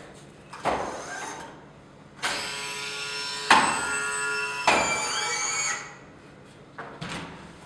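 Ferno iNX powered ambulance stretcher's leg mechanism running as the front legs fold up onto the loading platform: a steady motor whine lasting about three and a half seconds, with two sharp clacks and a rise in pitch just before it stops. A single thump comes a little before the motor starts.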